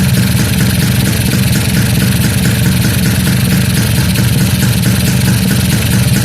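Kawasaki GTO 125 two-stroke single-cylinder engine idling steadily while its two-stroke oil pump is bled of air.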